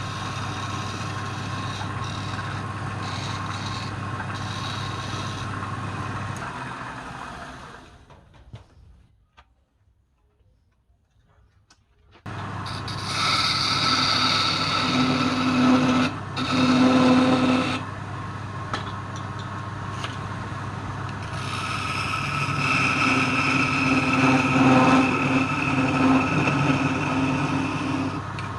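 A woodturning lathe runs with a steady motor hum, and a tool cutting the spinning wood adds louder stretches of steady, pitched noise. It dies away to near silence about eight seconds in, then starts again suddenly about four seconds later.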